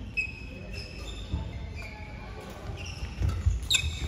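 Badminton doubles rally: sports shoes squeaking briefly on the court mat several times over dull footfall thuds, with sharp racket-on-shuttlecock hits near the end.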